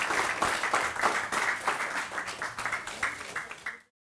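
Audience applauding. The clapping thins out and fades, then cuts off abruptly just under four seconds in.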